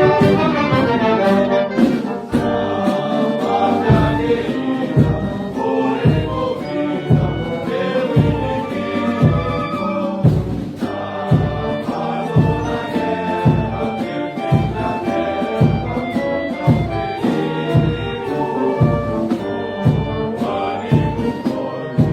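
Orchestral background music with brass, with a steady low beat joining in about four seconds in.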